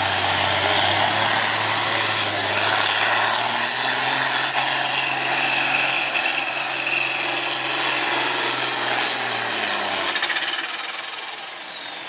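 John Deere farm diesel tractor running hard under load as it pulls a weight-transfer sled, its engine note steady with a high whine over it. About ten seconds in, the engine drops off and the whine glides down as the throttle comes off at the end of the pull.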